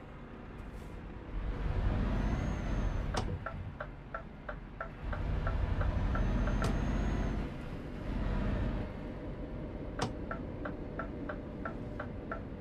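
Vehicle on the move, with a low road and wind rumble that swells and eases. There are two spells of rapid ticking, about five ticks a second, and sharp clicks about three seconds in and again about ten seconds in.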